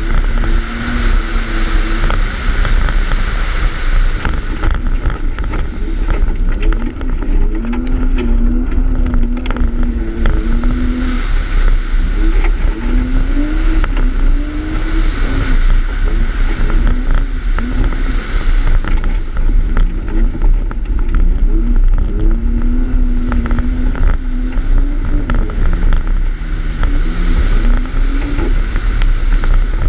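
BMW E36's M52B28 2.8-litre straight-six engine driven hard on loose dirt, its revs climbing and dropping again and again through gearshifts and lifts, over a heavy low wind rumble on the microphone and clicks of gravel hitting the car.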